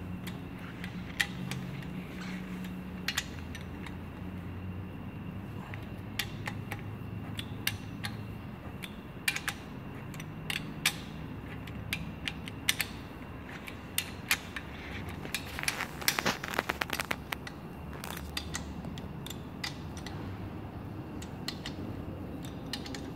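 Hand socket wrench turning bolts on a Thermo King engine's cylinder head, giving scattered sharp metal clicks and ticks. There is a quick run of clicks about sixteen seconds in, over a steady low hum.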